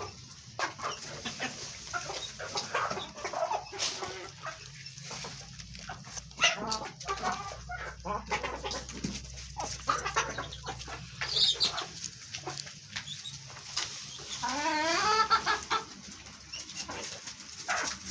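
Chickens clucking, many short calls overlapping, with one longer, louder wavering call about fifteen seconds in.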